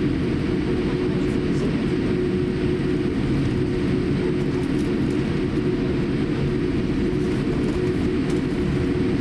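Steady cabin noise inside a Boeing 787-8 airliner taxiing on the ground, with a constant engine hum over a low rumble.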